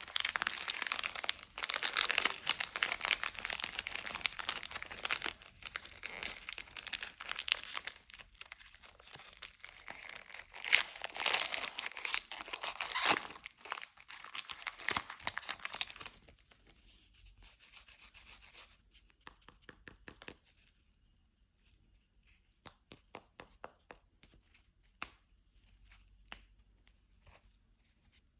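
Candy wrapper being torn open and crinkled: a dense crackling rustle, loudest about eleven to thirteen seconds in. It thins out after about sixteen seconds, and the last third holds only scattered light clicks and taps.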